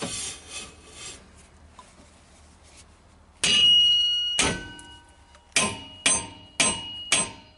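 Hammer blows on the end of a knock-type hub puller on the rear axle of a 1948 Nash Ambassador, driving the tight brake drum and hub off the keyed axle. There are six sharp metal strikes, each ringing afterwards. They start about three seconds in, the first two about a second apart and the rest about half a second apart.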